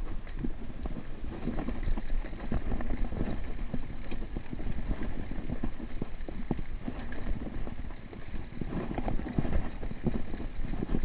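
Mountain bike riding over rocky dirt singletrack: a steady low rumble of the tyres with frequent small knocks and rattles as the bike goes over stones.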